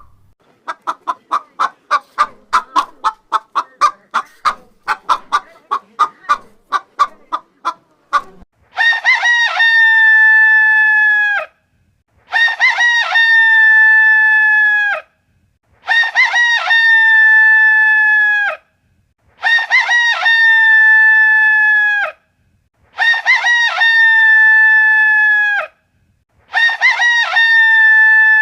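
Rooster clucking in quick short notes for about eight seconds, then crowing. The crows come six times, evenly spaced about every three and a half seconds, and each is a long held call of about three seconds that drops slightly in pitch and cuts off abruptly.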